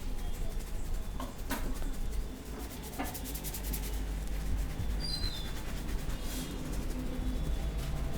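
Low steady background rumble with a few sharp taps, and a short bird chirp about five seconds in.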